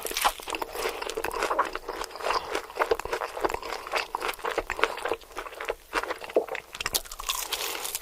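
Close-miked eating sounds: a person biting and chewing food with dense, irregular crunching and crackling clicks.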